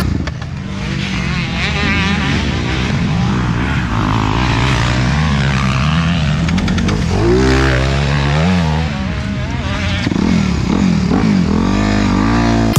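Motocross dirt bike engine revving up and down as it is ridden round the track, heard from the rider's helmet camera, with several quick rising revs in the second half.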